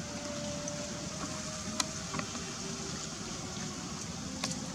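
Steady low background rumble with a faint held tone, broken by a few sharp clicks, one about two seconds in and another near the end.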